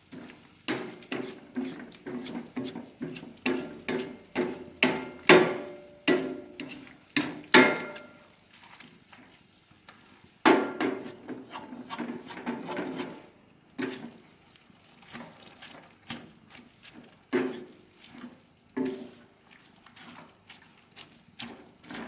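Spatula knocking and scraping against a wok during stir-frying. The strikes come in quick runs of about two a second, each with a short ringing note, and thin out in the second half, with one hard strike about ten seconds in.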